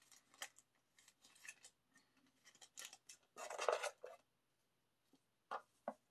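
Small glossy photocards being handled and flicked through by hand: scattered light clicks, a brief rustle of cards sliding against each other about halfway through, and two sharp clicks near the end.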